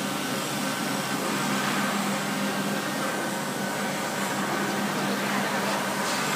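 Spiral dough mixer running, its motor turning the hook through bread dough in the bowl with a steady, unchanging hum.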